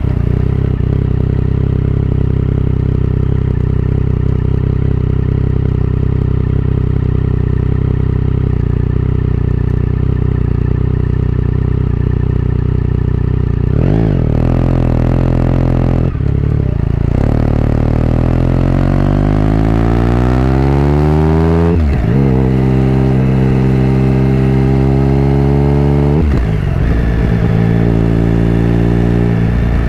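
Triumph Sprint GT's three-cylinder engine running through a Delkevic aftermarket exhaust, recorded close to the silencer while riding. It holds a steady note for the first half, then climbs under acceleration. The pitch drops abruptly at gear changes about two-thirds of the way in and again near the end, settling to a steady note after each.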